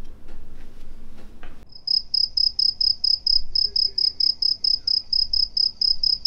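Cricket chirping, a steady rapid train of high chirps at about five or six a second, starting a little under two seconds in. It is the stock 'crickets' cue for an empty, silent room. A few faint taps come before it.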